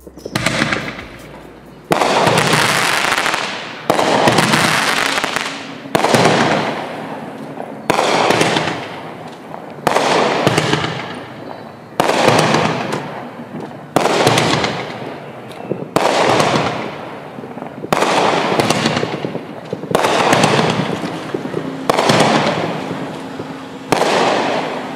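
Consumer canister artillery shells (Pixels) going off in the sky one after another, about every two seconds: each a sudden loud bang that fades away over a second or two, around a dozen in all.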